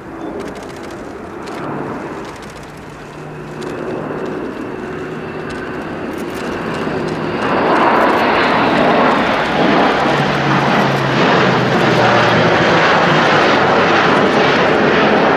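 Airbus A400M Atlas's four counter-rotating Europrop TP400 turboprops running in flight: a steady low propeller hum under a rushing engine noise that grows louder. About halfway through it swells sharply and stays much louder as the aircraft comes closer.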